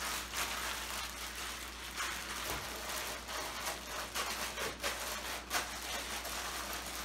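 Plastic zip-lock bag crinkling and rustling in irregular crackles as hands knead chicken wings in a liquid marinade inside it.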